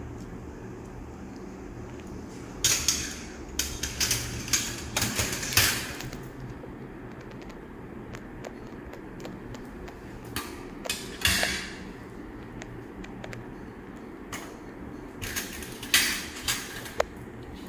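Steel surgical instruments, a needle holder and forceps, clicking and scraping in three short bunches while the skin incision of a cat spay is sutured, over a steady low hum.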